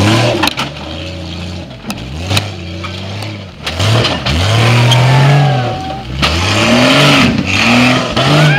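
Lifted Jeep Cherokee's engine revving up and down again and again under load as it crawls over rocks up a steep slope, with a few sharp knocks.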